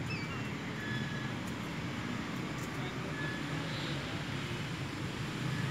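Steady low outdoor background rumble, with a few faint, short high chirps.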